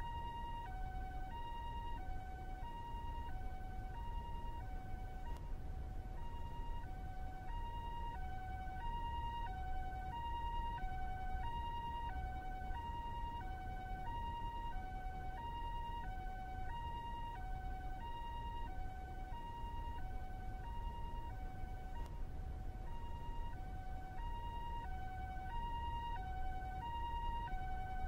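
Japanese ambulance's two-tone hi-lo siren, a high and a low note alternating evenly, about one high-low cycle every second and a bit, steady in level. A low steady rumble runs underneath.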